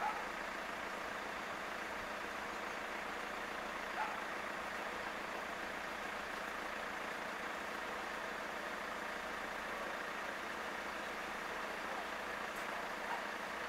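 Steady outdoor background hum with no single clear source, and a few faint brief high notes at the start, about four seconds in, and near the end.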